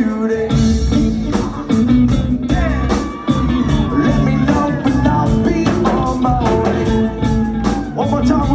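Live rock band playing a surf-punk song: drums, bass and electric guitar with sung vocals, loud and without a break.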